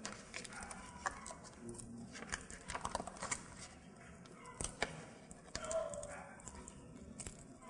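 Scattered light clicks and taps, a few in quick clusters, with faint voices murmuring in the background.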